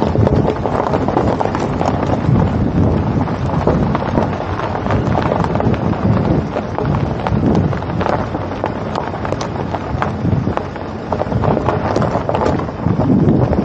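Wind buffeting the microphone of a camera travelling along a road: a loud, uneven rush with many short crackles.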